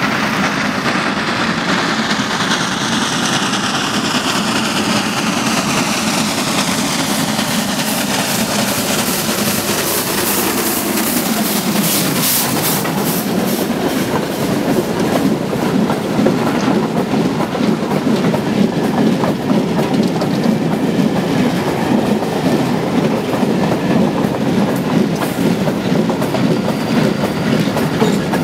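A 33-series 2-10-0 steam locomotive approaches and passes with a high whine falling in pitch, then a long freight train of open wagons rolls by with a steady clickety-clack of wheels over the rail joints.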